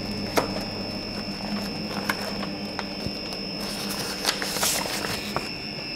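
A few scattered light clicks over a steady low hum and a thin, high, steady whine.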